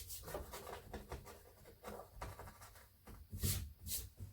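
Faint handling noises: soft rustling and light taps, with two louder knocks about three and a half and four seconds in.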